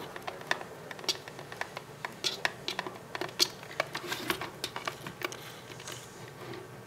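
Irregular small clicks and taps of hand work on a plastic MoPod camera rotator as the single screw on its front is being removed.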